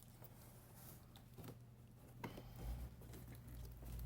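Faint handling of a worn cardboard box as it is opened: a few soft taps and rustles over a steady low hum.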